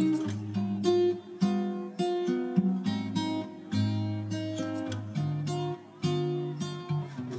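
Background music: an acoustic guitar strumming chords, each one ringing out and fading before the next.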